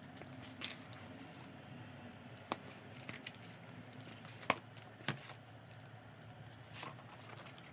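Soft crinkling and rustling from objects being handled, with a few isolated sharp clicks or taps.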